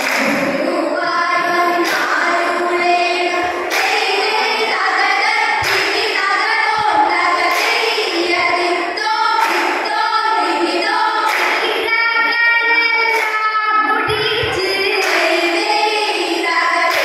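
Group of girls singing a Malayalam vanjippattu (Kerala boat song) together, with sharp hand claps marking the beat about every two seconds.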